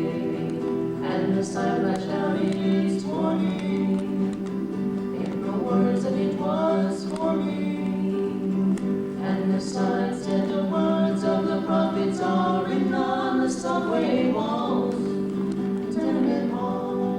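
Live music: acoustic guitar with two voices singing in harmony, a lead and a lower harmony line, on long drawn-out notes.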